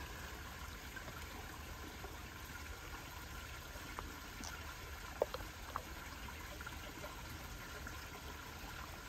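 Spring water trickling steadily, with a few light clicks around the middle.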